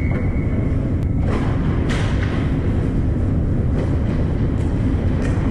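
Ice hockey game heard from beside the goal: a steady low rumble of the rink, crossed by scattered sharp clicks and knocks of sticks, skates and puck on the ice. A single steady high whistle tone fades out within the first second.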